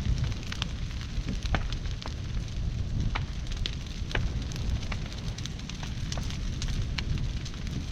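Brush burn pile crackling, with frequent sharp, irregular pops over a low, steady rumble.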